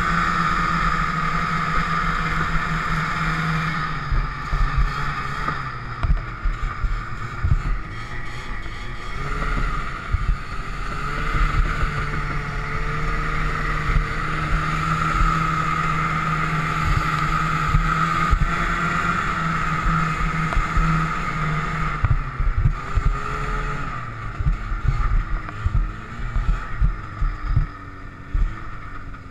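Snowmobile engine running steadily at speed, its pitch rising and falling a little with the throttle, with frequent short knocks. The level drops near the end.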